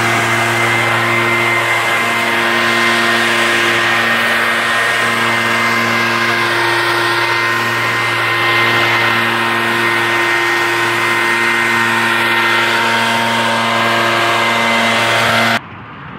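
Backpack leaf blower engine running steadily, with a rush of air from the tube. It cuts off suddenly near the end.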